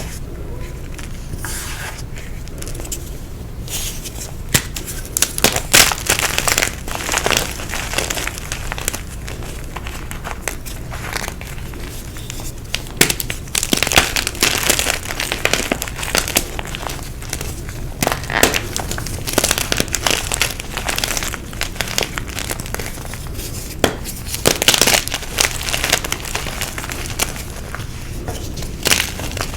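Blocks of gym chalk being crushed, with dry crunching and crackling that comes in several flurries of sharp crackles.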